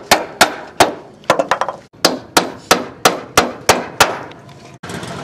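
Hammer driving a nail into a hardwood frame with sharp strikes, about three a second, with a quick run of lighter taps in between. Near the end the hammering stops and a handheld electric power tool starts running steadily.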